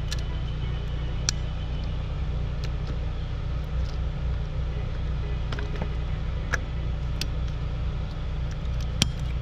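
A few sharp metal clicks, the loudest near the end, as locking pliers grip and work the spring clamp on a throttle body coolant hose, over a steady low rumble.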